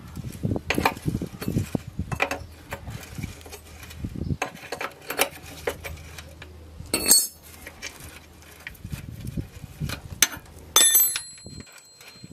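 Steel open-ended spanners clicking and clinking against a brake hose fitting on a rusty steel subframe as the nut is undone. There is a sharp metallic clink about seven seconds in, and near the end a spanner clanks and rings briefly.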